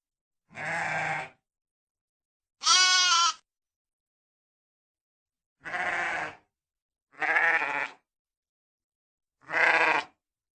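Sheep bleating: five separate bleats, each under a second long, with silence between them.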